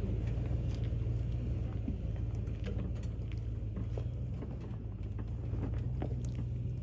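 2004 Lexus GX470's V8 engine running at low trail speed, a steady low rumble, with scattered small clicks and knocks as it crawls over a rocky trail.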